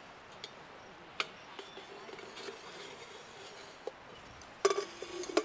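Sparse metallic clinks from a stainless-steel billy-pot oven lid and a utensil being handled, a few single taps spread out, then a quick flurry of clinks near the end.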